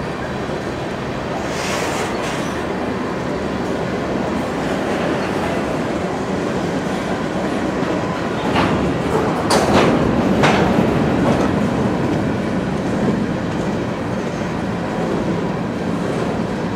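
Freight train cars (covered hoppers and boxcars) rolling past close by: a steady rumble and clatter of steel wheels on the rail, with a few sharp metallic clanks about nine to ten seconds in, the loudest moment.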